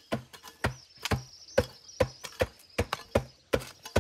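Repeated hollow knocks, about ten of them at a little over two a second, each with a brief ring after the strike.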